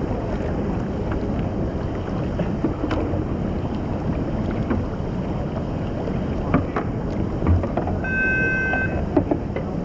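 Rushing whitewater of an artificial slalom channel heard from a kayak, with wind buffeting the microphone and scattered splashes and knocks. About eight seconds in, a short steady beep-like tone lasts about a second.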